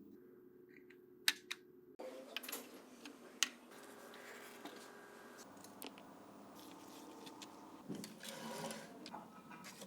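Small parts being handled: a few sharp clicks and taps, with light rubbing or scraping near the end.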